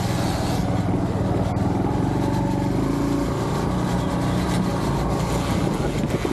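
Honda Trail 125's single-cylinder engine running steadily as the bike rides along a dirt trail, with an unidentified noise the rider says is definitely not normal.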